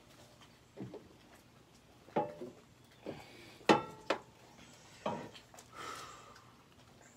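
Metal knocks and clanks from a car's exhaust pipe and muffler being handled and fitted by hand from underneath; five separate strikes, two of them ringing briefly like struck metal.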